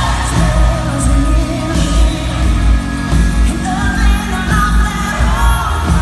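Live band playing a country-rock song with a woman singing lead over a steady, heavy drum and bass beat, recorded from the arena crowd.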